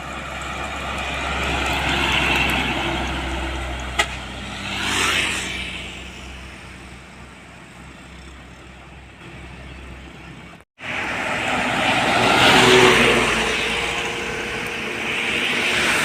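Road traffic, trucks among it, passing by on a highway one vehicle after another, each swelling and fading with tyre and engine noise. There is a single sharp click about four seconds in, and the sound drops out briefly near eleven seconds at a cut, after which more vehicles pass, louder, with a steady engine hum.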